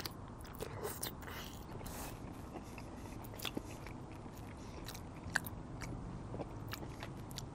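A person chewing a mouthful of poutine (fries with cheese curds and gravy) close to the microphone, with scattered small wet clicks.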